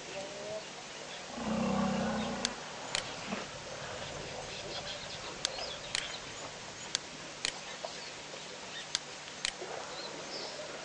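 A wild animal gives one loud, low call lasting about a second. Scattered sharp clicks follow over the steady outdoor background.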